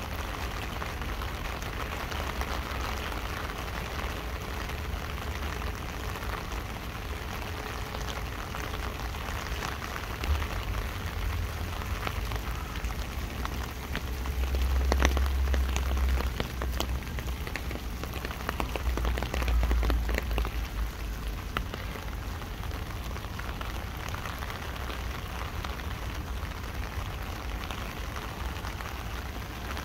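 Steady rain falling on an umbrella held overhead, an even patter of drops. Bouts of deep low rumble come and go around the middle and are the loudest moments.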